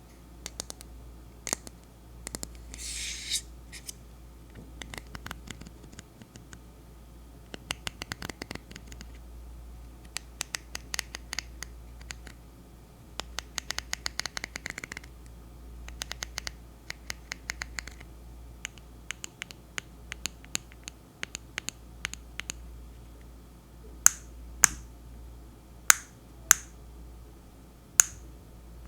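Fingernails tapping and scratching on a Naturium salicylic acid body spray bottle: quick runs of light taps, with a short hiss about three seconds in and a longer scratchy stretch around the middle. Near the end come five sharp, louder clicks.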